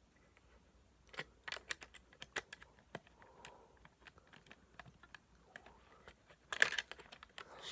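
Faint, irregular small plastic clicks and taps from Lego pieces and a minifigure being handled, with a louder flurry of clicks near the end.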